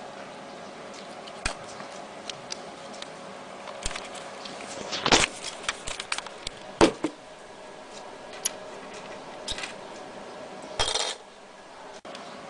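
Small hard objects, likely the optical mouse and its parts, handled on a work surface: scattered clicks and light knocks, two louder knocks about five and seven seconds in, and a brief rustle near the end, over a steady faint hum.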